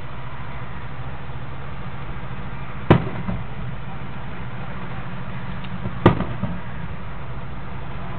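Two distant firework shells bursting, one about three seconds in and one about six seconds in, each a sharp bang with a short rumbling echo, over a steady low background hum.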